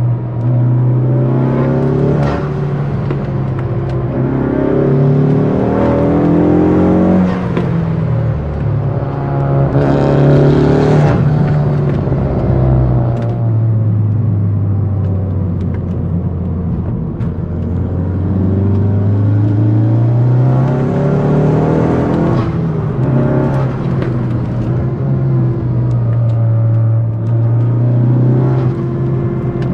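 Tuned 400 bhp Ford Focus ST's turbocharged engine, heard from inside the cabin. It accelerates hard, its pitch climbing and dropping repeatedly through gear changes and lifts for bends. A short rushing hiss comes about ten seconds in.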